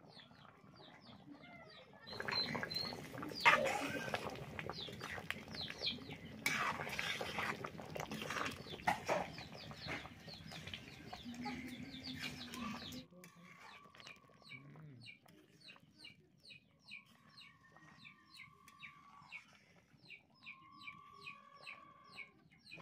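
Chickens clucking and calling with a rapid run of short, high peeps, plausibly from chicks. For the first half a louder rustling noise runs under them and drops away about thirteen seconds in; after that three longer, steady calls stand out.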